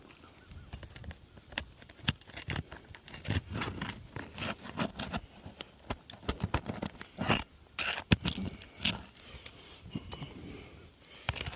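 Irregular scraping and sharp clicks of brittle 3-tab asphalt shingles being worked loose and pried up by hand, with one sharp snap about eight seconds in.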